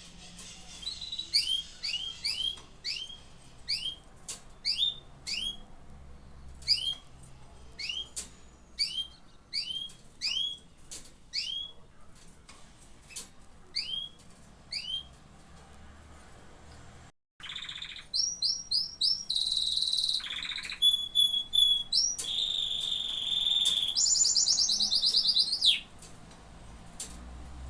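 Domestic canaries calling and singing. First come single short chirps repeated at irregular intervals. After a brief break, a fast, varied song follows, with trills, held whistled notes and a quick high trill that falls in pitch near the end.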